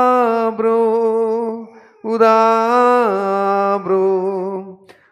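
A priest chanting in a slow liturgical melody, long held vowel notes that step down in pitch, in two phrases with a short break about two seconds in.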